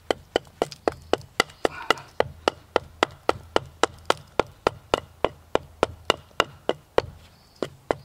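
Small hatchet, choked up near the head, chopping short quick strokes into the inner edge of a split log quarter: a steady run of sharp wooden chops, about three or four a second. It is notching out the air channel of a Swedish fire torch.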